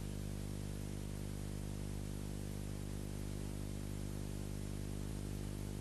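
Steady static hiss with a low electrical buzzing hum underneath, unchanging throughout.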